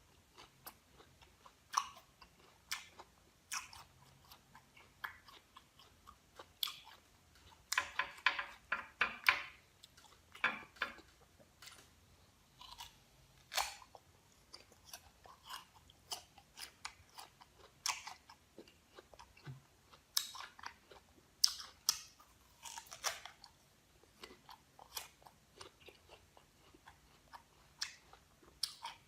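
Someone biting into and chewing crisp raw green guava, in irregular crunchy strokes. The crunches come thickest about eight seconds in and again around twenty seconds in.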